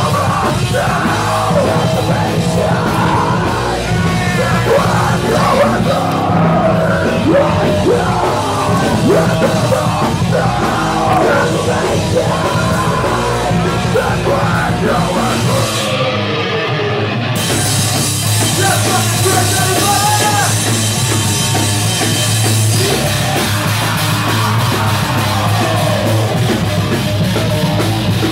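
Loud live heavy rock band playing a song, a vocalist yelling over distorted guitar, bass and drums.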